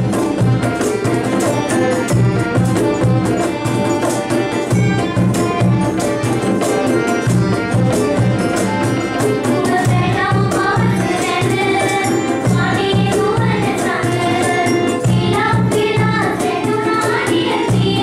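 Live music: a group of girls singing, accompanied by acoustic guitars and violins over a steady beat. The voices come to the fore about ten seconds in.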